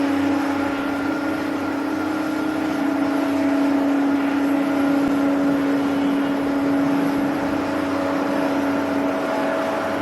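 Jet airliner engines running: a steady noise carrying a constant hum and its overtones, unchanging throughout.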